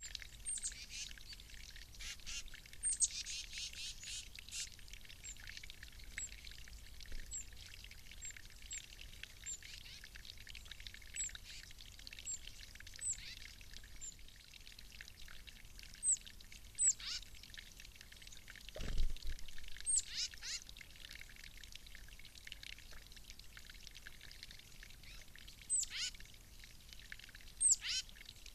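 Water trickling and splashing from a birdbath spout into its basin, with short, high, downward-sliding bird chirps repeating every second or two. A single low thump comes about two-thirds of the way through.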